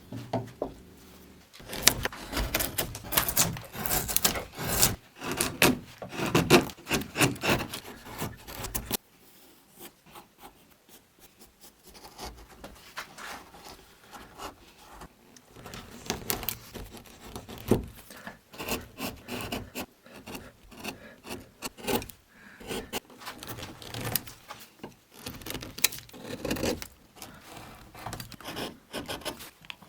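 Hand carving tools cutting and scraping basswood in repeated strokes, louder for the first nine seconds or so, then lighter strokes.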